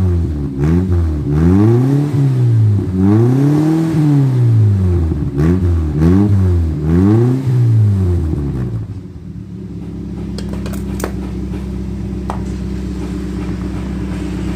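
Toyota Kijang Rover engine exhausting through a newly fitted aftermarket HKS-style muffler with resonator, revved in repeated blips, each rising and falling in pitch, for about eight seconds. It then settles to a steady idle, with a few sharp clicks near the end.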